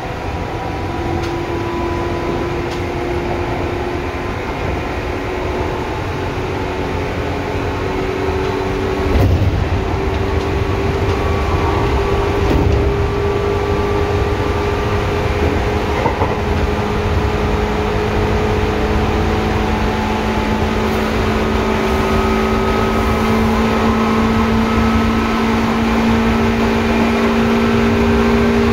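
Seibu 2000 series electric train heard on board while running: a loud traction-motor whine that rises slowly in pitch and grows louder as the train gathers speed, over a steady wheel and rail rumble. A heavier burst of rumble comes about nine seconds in.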